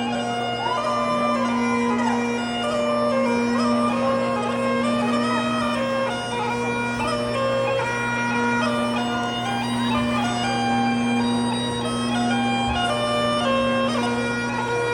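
Bagpipes playing a processional tune, the melody stepping from note to note over a steady, unbroken drone.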